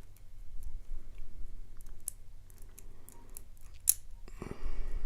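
Small metallic clicks from a lock pick working the pins of a Yale euro cylinder lock. They come irregularly and sparsely, with one sharper click about four seconds in.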